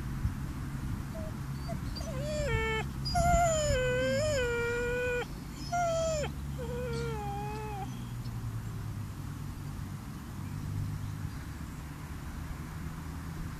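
Seven-month-old chocolate Labrador puppy whining: a string of high, falling cries, one of them long and drawn out. The cries stop about eight seconds in.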